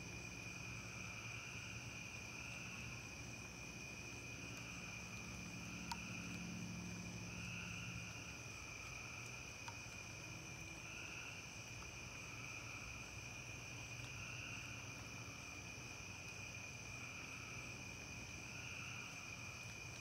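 Night insect chorus of crickets trilling steadily at a high pitch, swelling and easing about every two seconds. A faint low hum fades out about eight seconds in, and there are two small clicks.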